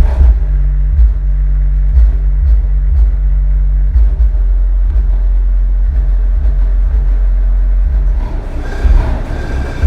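Hard Power S1000 1000 W subwoofer playing bass-heavy music, with deep bass hits repeating throughout. A steady low bass note holds for the first several seconds.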